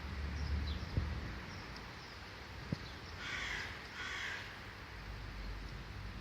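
A crow cawing twice in quick succession, two harsh calls about three seconds in, with a faint sharp click just before.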